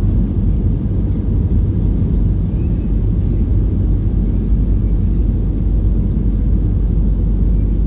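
Steady low rumble of cabin noise inside an Airbus A320-214 in flight: its CFM56 engines and the airflow over the fuselage, heard from a seat behind the wing.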